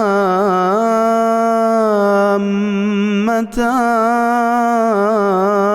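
A man's voice chanting Quran recitation in melodic tajweed style, drawing out long ornamented vowels with wavering pitch. There is one short breath break about three and a half seconds in.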